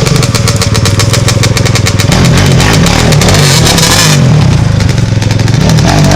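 ATV engines running close by and loud, their rapid firing pulses going on throughout. A loud hissing rush builds near the middle and cuts off suddenly about four seconds in.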